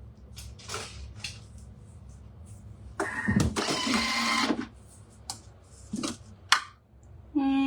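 Thermomix blade chopping onion and garlic in a short whirring burst of about a second and a half, amid small clicks and knocks of handling. Near the end, a short steady tone.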